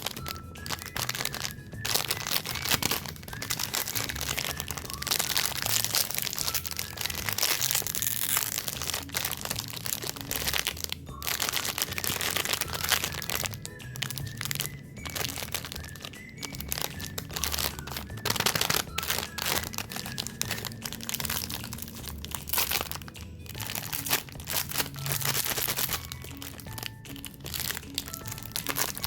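Plastic snack wrappers on packaged cakes and cookies being crinkled and handled close to the microphone, a dense run of rustles and crackles, over background music.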